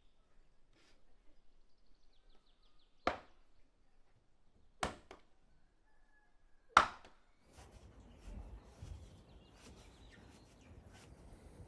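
Axe chopping firewood on a chopping block: three sharp strikes about two seconds apart, the last the loudest, then faint background noise.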